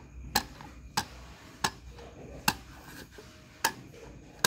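Crocodile dentist toy: its plastic teeth click sharply as they are pressed down one by one, about six clicks spaced a little under a second apart.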